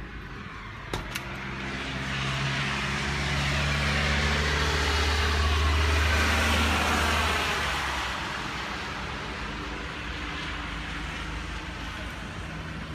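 A road vehicle passing on a snowy highway: its engine hum and tyre hiss swell to a peak about five to seven seconds in, then ease back to a steady traffic rumble. Two sharp clicks come about a second in.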